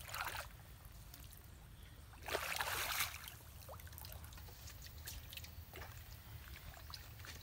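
Water streaming and dripping off a gill net as it is lifted out of a canal by hand, with a short splash right at the start and a longer, louder splash about two seconds in.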